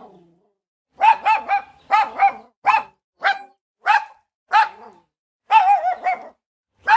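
Small dog barking: about a dozen short, high-pitched barks, some single and some in quick runs of two or three, after a brief pause at the start.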